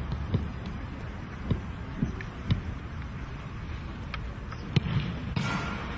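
A football being touched and kicked: about five dull thumps of boot on ball at uneven intervals over a steady low outdoor rumble, with a short rushing hiss near the end.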